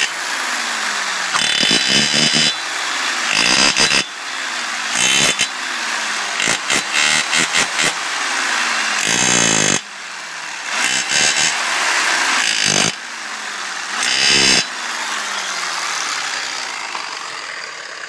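Electric chipping hammer pounding against the centre of a steel car wheel in about eight short bursts, its motor winding down after each one. The hammering is meant to break a wheel free where it has rusted onto the hub.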